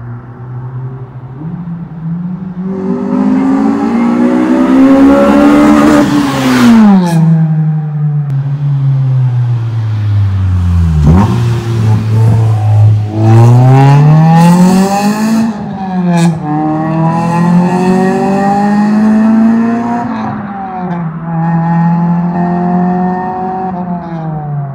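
1999 Honda Civic Si's B16A2 VTEC four-cylinder with an aftermarket cat-back exhaust, driving past at speed. The engine revs up, the pitch falls as the car closes in and drops sharply as it passes about eleven seconds in, then it accelerates away through the gears with upshifts at about 15 and 20 seconds.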